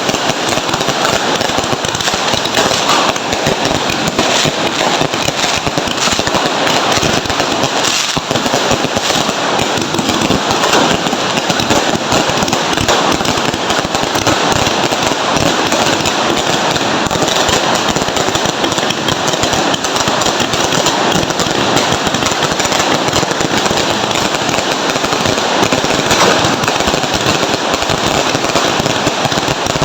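Dense, unbroken crackling and popping of fireworks and firecrackers, many small bangs overlapping continuously at a steady loudness.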